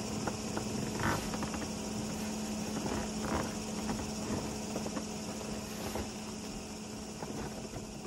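EENOUR portable air conditioner running, a steady hum from its compressor and fan with a hiss of moving air. There are a few brief rustles of bedding and clothing, loudest about a second in and again about three seconds in.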